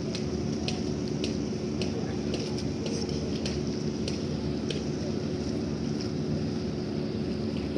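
Steady low drone of a large ship's engines, with a constant hum and scattered light clicks over it.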